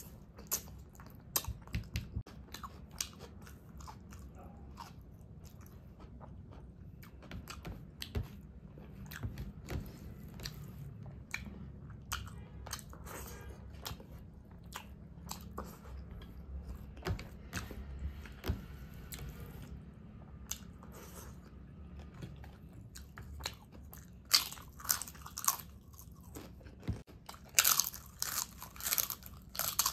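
A person eating close to the microphone: steady chewing with many short, irregular crunchy clicks and smacks, growing louder and busier near the end.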